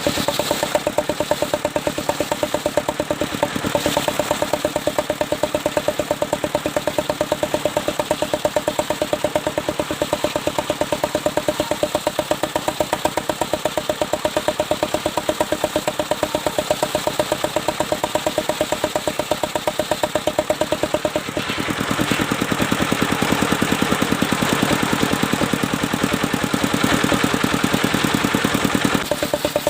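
Engine of a portable circular sawmill running with a steady, rapid knocking beat. From about two-thirds of the way in, a louder hiss joins it for several seconds, as the circular blade cuts through mahogany, then drops back to the engine alone.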